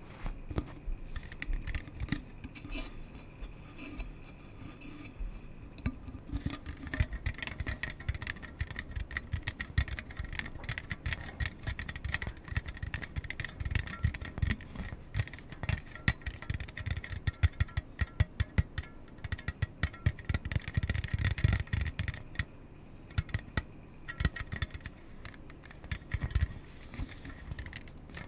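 Close-miked ASMR trigger sounds: rapid, irregular tapping and scratching, many strokes a second, getting busier and louder about seven seconds in.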